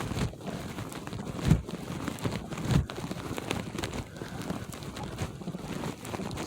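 Footsteps crunching in snow, an irregular crackling with a couple of heavier thumps about a second and a half in and again near three seconds.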